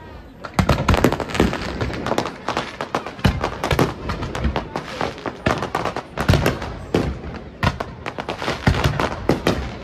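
Fireworks display: a dense, irregular string of bangs and pops from aerial shells launching and bursting, starting about half a second in.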